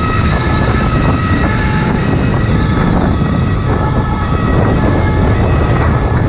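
Steady rush of wind on a helmet-mounted microphone over a motorcycle engine running at speed, with an ambulance's two-tone siren sounding faintly behind, its tones switching back and forth.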